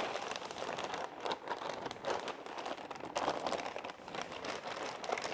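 Plastic wrapping crinkling and rustling as hands handle and turn a part wrapped in a clear plastic bag, starting abruptly. The crackle is continuous and irregular.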